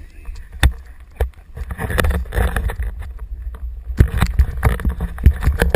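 Snow scraping and hissing under a rider being towed up a groomed T-bar lift track, over a low wind rumble on the microphone. Several sharp knocks come through, a few at the start and a cluster near the end.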